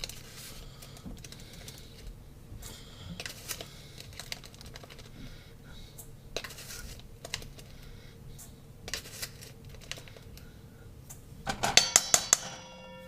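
Light clinks and taps of a utensil against a bowl while dried dill is shaken in, then near the end a quick run of sharp, loud taps that leave a ringing metallic tone.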